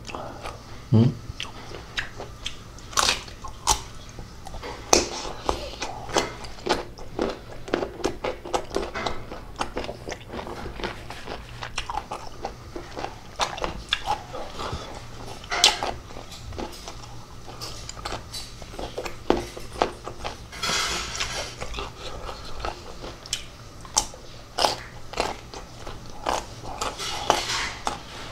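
Close-up crunching and chewing of crisp raw green mango, with many irregular sharp bites and wet mouth sounds.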